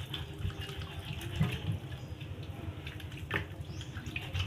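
Water in a kitchen sink as hands wash meat, with two light knocks, one early and one a little after the middle.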